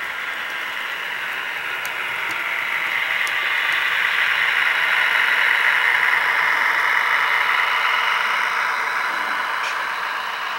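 HO-scale model freight train rolling past on the layout track: a steady rushing whir of locomotive drive and wheels on rail that swells as the train passes close, peaks about halfway, then fades, with a few faint clicks.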